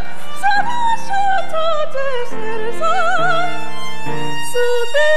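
A ventriloquist singing in an operatic style through her puppets, with wide vibrato on the held notes, over a backing track of sustained chords.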